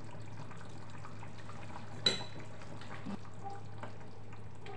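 A metal spoon stirring stew in a pot, with one sharp metallic clink against the pot about two seconds in and small scrapes and clicks around it. A low steady hum runs underneath.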